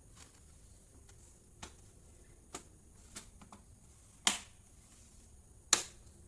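A series of sharp clicks and taps, hard plastic and small parts being handled during work on a laptop. The last two are much louder knocks, a little over a second apart.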